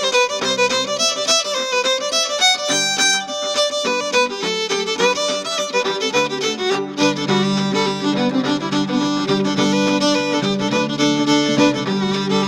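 Background music: a quick, busy melody over lower notes that become held and steady about halfway through.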